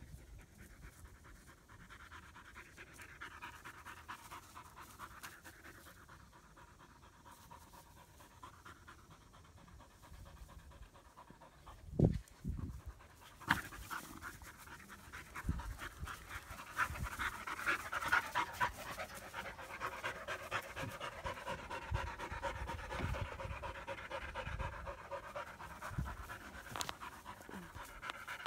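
German Shepherd puppies panting from running and play-fighting, with a few dull thumps, the loudest about twelve seconds in.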